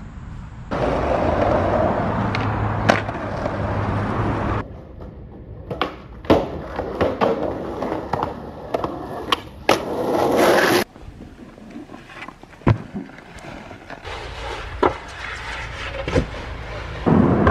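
Skateboard wheels rolling on concrete in several stretches that start and stop abruptly, broken by many sharp clacks of the board popping, hitting and landing.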